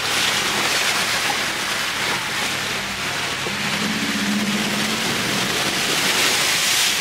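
Water rushing and splashing against a Jeep as it drives fast through a deep river crossing, heard from inside the cabin. The engine runs underneath, its note swelling briefly about halfway through.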